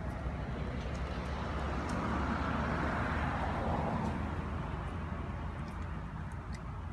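A motor vehicle passing: a broad rushing sound that swells over a couple of seconds and fades away, over a steady low rumble.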